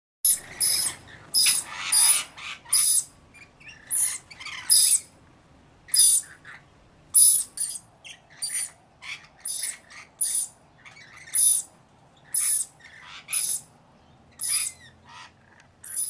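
Parrots calling: a steady run of short, high-pitched calls, about one or two a second.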